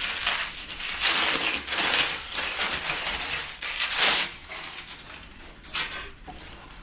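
Plastic packaging crinkling and rustling as a sari is pulled out of its wrapper and handled. It comes in irregular bursts, loudest about a second in and again around four seconds, then dies down.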